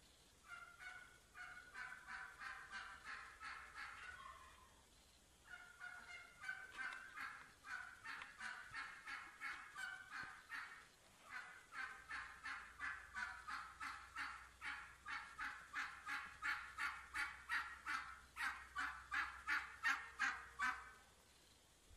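Wild turkey hens yelping: runs of short, evenly spaced calls, about three a second, with brief pauses about a quarter and halfway in. The last long series grows louder and stops just before the end.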